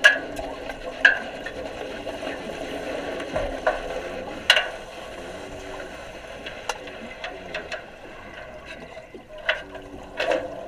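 Underwater sound in a welding training tank: a steady hiss broken by sharp clicks and knocks every second or two.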